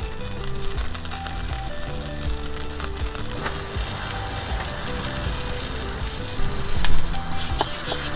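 Steak sizzling and crackling on a grill over an open wood fire, under background music, with a few sharp clicks near the end.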